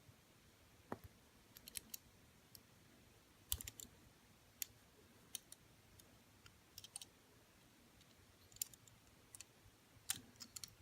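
Faint, irregular small clicks and taps of a diecast toy car and its tiny Goodyear-lettered wheels being handled as a front wheel is fitted onto its axle.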